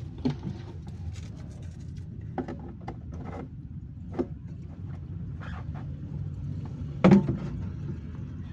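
Scattered knocks and clicks from hands working at a generator's radiator and panels, over a steady low rumble. The sharpest knock comes about seven seconds in.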